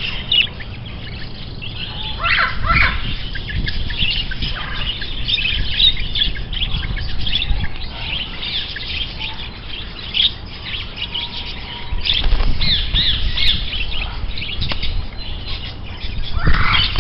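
A flock of small birds chirping and calling at once, a dense run of short overlapping high chirps, with a low rumble underneath.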